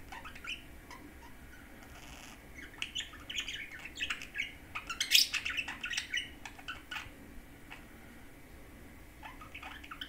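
Budgerigar chattering to itself in a run of quick chirps and clicks, densest from about three to seven seconds in and loudest around five seconds, with a few scattered chirps at the start and near the end.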